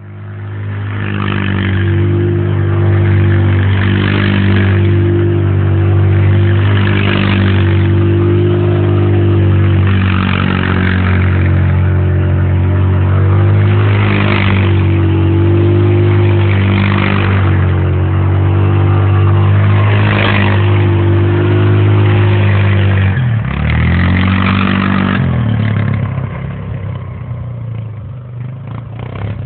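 Small off-road vehicle's engine running at a steady pitch as it is driven across a dirt field, with a dip and rise in its note about 23 seconds in. It becomes quieter over the last few seconds.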